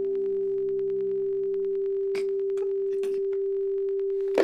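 A single steady pure tone held at an even level, with a fainter low drone under it that fades out over the first couple of seconds. A few soft noises come near the middle.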